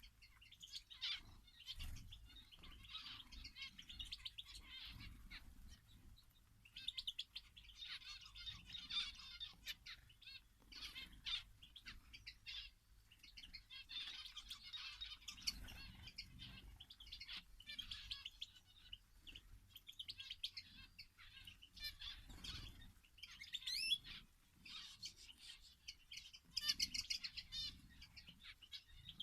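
Small songbirds in an aviary chirping and twittering, many rapid trilled phrases overlapping throughout, with scattered short sharp sounds among them.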